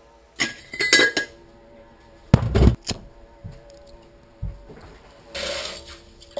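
Tabletop and kitchen handling sounds: a few metallic clinks, then a louder thud about two and a half seconds in, and a short rushing noise near the end.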